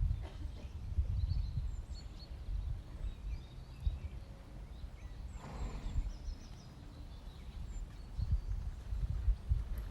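Low, gusty rumble of wind on the microphone with irregular dull thuds and faint bird chirps, and a short breathy rush about five and a half seconds in.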